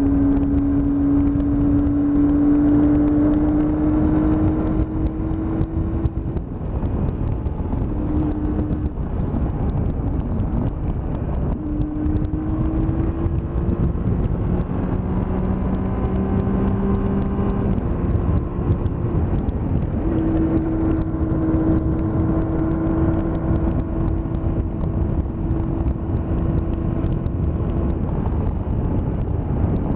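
Triumph Tiger motorcycle engine running under way over steady wind rush. Its note holds a steady pitch, then drops and climbs again several times, as through gear changes.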